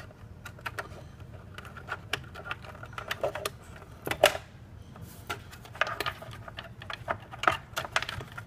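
Irregular plastic clicks and knocks from cable plugs being pulled out of the back of an Asus RT-AC87 router and handled, with the loudest click about four seconds in.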